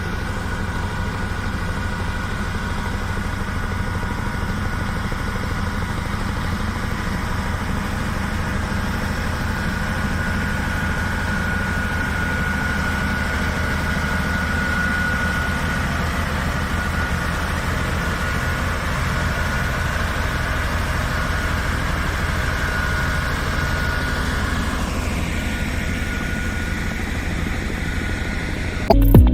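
Heavy construction-machine engine running steadily with a low rumble and a faint whine above it; the whine dips in pitch about three-quarters of the way through.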